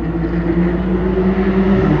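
Porsche 911 GT3's naturally aspirated flat-six engine running at fairly steady revs, getting slightly louder.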